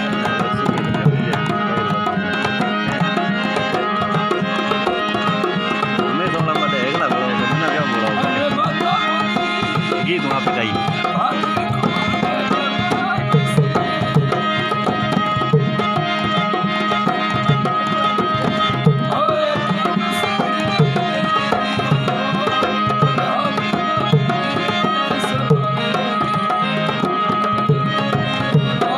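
Instrumental interlude of a Marwari folk song: a tabla-type hand drum playing a steady rhythm over sustained drone-like melodic tones.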